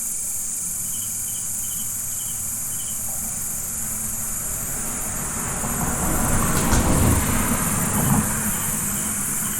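Steady insect chirping with short repeated chirps in the first few seconds. A vehicle passes about six to eight seconds in, its sound swelling and then fading.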